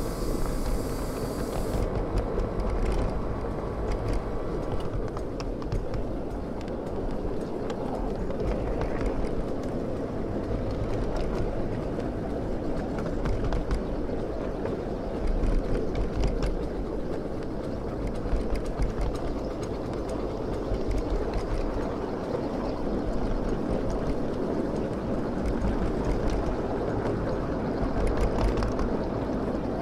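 Ride-on miniature live-steam locomotive and its riding cars running along the track: a steady rumble of wheels on rail with many small clicks. A hiss, with steam venting from the engine, stops about two seconds in.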